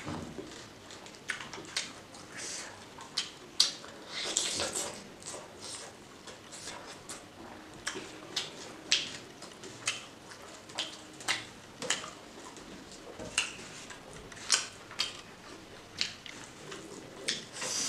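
Close-miked mukbang eating sounds of pork and rice eaten by hand: irregular wet mouth smacks and chewing clicks, with a longer, noisier stretch around a big mouthful about four seconds in.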